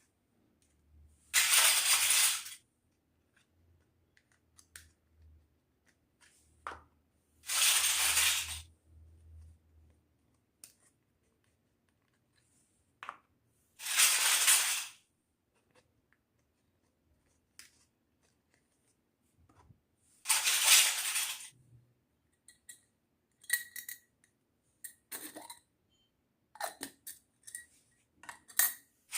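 Small miniature toy kitchen pieces being handled, with light clicks and clinks, mostly near the end. Five loud bursts of noise, each about a second long, come a few seconds apart.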